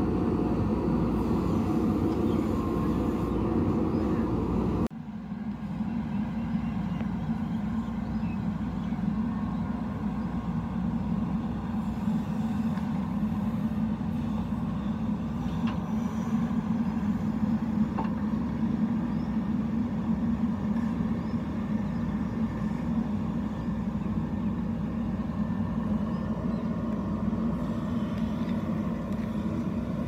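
JCB 3DX backhoe loader's diesel engine running steadily as it works the backhoe arm, digging and swinging soil into a tipper truck. The sound drops and changes abruptly about five seconds in.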